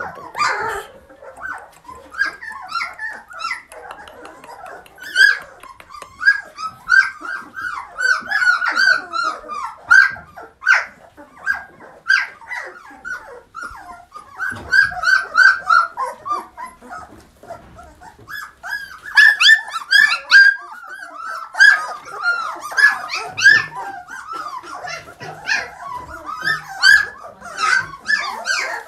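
A litter of 18-day-old puppies whining and yelping: many short, high-pitched squeals overlapping and repeating throughout.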